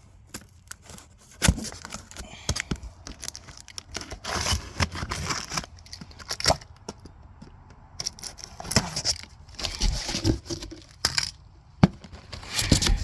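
Cardboard fireworks case being opened by hand: tape or wrapping tearing, packaging crinkling and rustling, with a few sharp knocks of cardboard.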